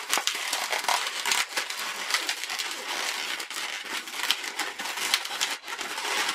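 Inflated latex twisting balloons rubbing against each other as they are squeezed and twisted by hand, a continuous dense rubbing full of small crackles.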